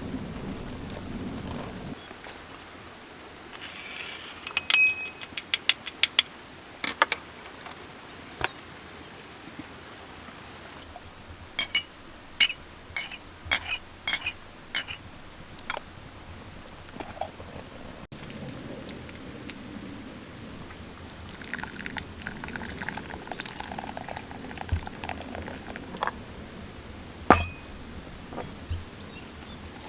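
Clinks and taps of cookware and utensils, many of them in quick runs, over a steady hiss of rain.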